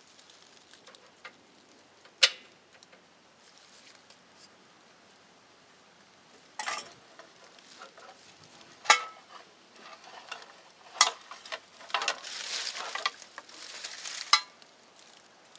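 Handling of small hard objects: sharp clinks and knocks a few seconds apart, with stretches of rustling and scraping, the longest near the end.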